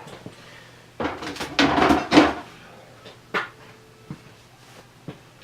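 Clunks and clatter of metal lathe parts being handled and set down: a cluster of knocks about a second in, then single sharper knocks later on, over a faint steady hum.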